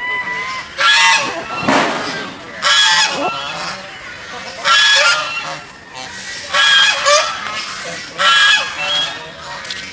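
Geese honking: loud, harsh honks repeated about every two seconds.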